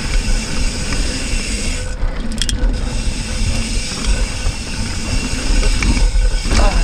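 Hardtail mountain bike riding a rough dirt trail: tyres rolling and rattling over dirt and rock, with a steady low wind rumble on the microphone and scattered knocks from the bike.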